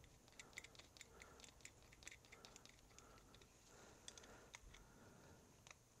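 Faint, irregular small metallic clicks and ticks of a screwdriver working in a small-engine carburetor as the pilot jet is screwed in and tightened.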